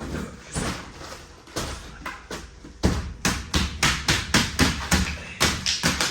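A run of hard knocks: a few spaced blows, then about four a second for the last three seconds. Something frozen is being banged to knock loose the ice inside.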